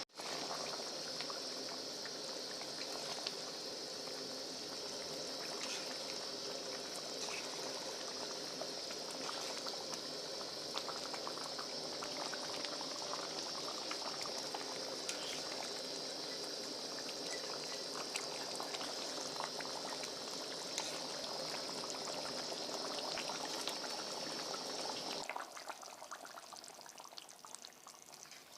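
Mutton curry cooking in a kadai after water has been added: a steady sizzling, bubbling hiss with small crackles, which cuts off suddenly about 25 seconds in.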